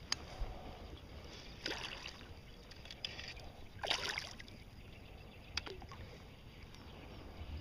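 Water sloshing and lapping around a float tube, broken by four short splashes a second or two apart, the one about four seconds in the loudest.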